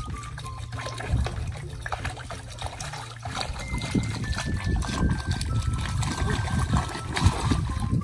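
Water splashing and sloshing in a shallow inflatable paddling pool as a small child steps and stamps about in it, with irregular small splashes throughout.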